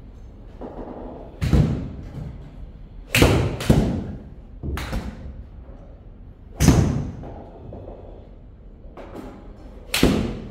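A series of about seven sharp thuds at irregular intervals, two of them close together, each ringing out briefly in a large room.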